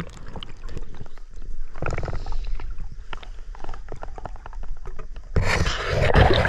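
Muffled underwater sound of a river, heard from a camera below the surface: scattered small clicks and crackles in the water, then a louder rushing noise of moving water about five seconds in.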